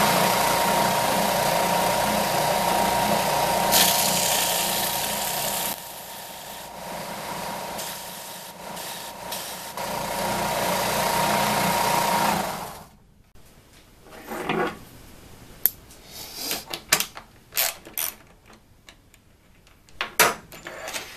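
Benchtop edge belt sander running with a steady motor tone, louder in stretches as a small aluminum key is worked against the belt. It shuts off and goes quiet about thirteen seconds in, followed by a few light clicks and knocks of small parts being handled.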